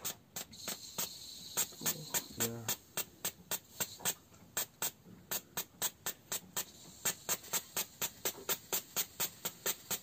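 Fuel injector of a Yamaha 150 HP outboard clicking as it is pulsed on and off from a battery while being flushed with carburettor cleaner, at first irregularly, then at a steady three to four clicks a second. A hiss runs through the first few seconds.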